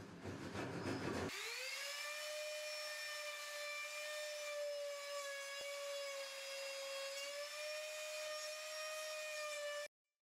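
A steady, high whine with overtones. It slides up quickly about a second in, holds with a slight waver for about eight seconds, then cuts off suddenly near the end. Before it comes a short stretch of rough noise.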